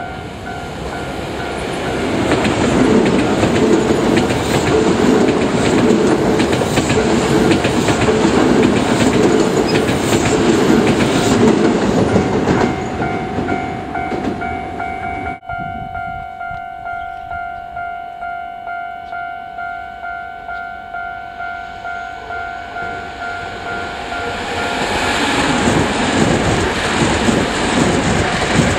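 Toei Asakusa Line 5300-series electric train passing at speed with clickety-clack over the rail joints, while a level-crossing bell rings in steady repeated dings. The train noise fades, leaving the crossing bell ringing alone. Near the end another 5300-series train approaches and passes.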